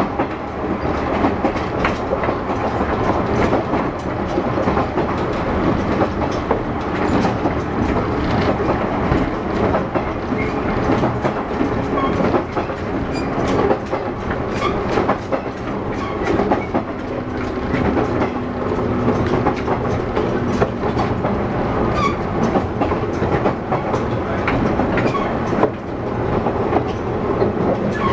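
Running noise heard inside a JR West 117 series 300-subseries electric train's motor car (MoHa 116) moving between stations. Wheels and traction motors give a steady rumble, with the clickety-clack of the wheels over rail joints.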